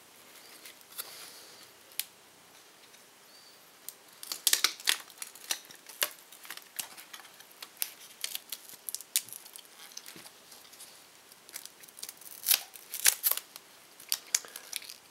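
Sharp clicks, crackles and tearing as a Nexus 7's cracked front glass and heat-softened adhesive are pried loose from the display and bezel. The sounds come in two clusters, about four seconds in and again about two seconds before the end.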